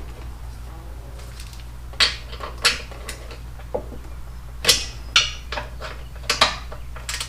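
Hand tools clinking on metal: a socket wrench and short extension at work on a motorcycle's 12 mm brake caliper mounting bolts, giving several separate metallic clinks, a few of them ringing briefly, over a steady low hum.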